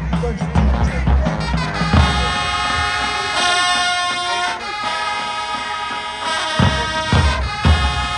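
Marching band playing: drums with bass drum hits for about the first two seconds, then the horns come in on long held chords, with two more bass drum hits near the end.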